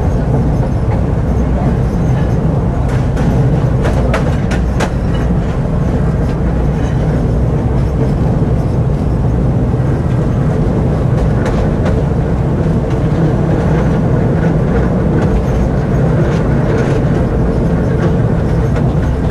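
Tram running along its track: a steady, loud low rumble of wheels on rails, with scattered sharp clicks as the wheels pass rail joints, clustered a few seconds in and again later on.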